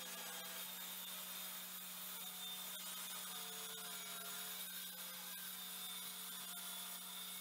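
Festool track saw running along its guide rail, cutting the excess off a glued-up wooden panel, heard faintly as a steady hum.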